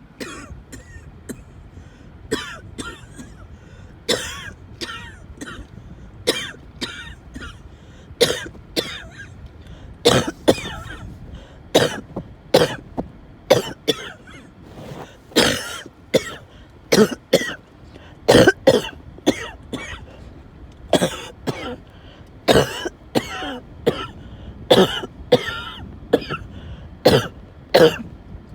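A person's coughing fit: a long run of harsh coughs, sparser and softer for about the first ten seconds, then louder and closer together.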